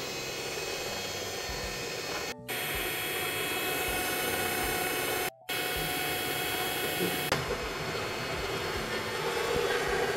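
Cornell electric hand mixer running steadily on its stand, its beaters whirring through a pale-yellow mixture, with two short gaps in the sound.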